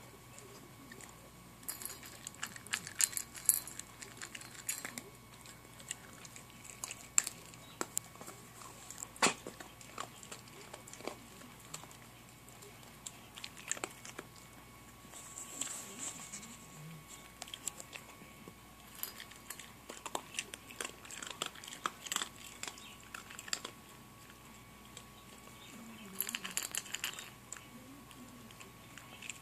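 A puppy crunching dry kibble from a stainless steel bowl, with sharp crunches and clicks. It eats in several short spells with pauses between.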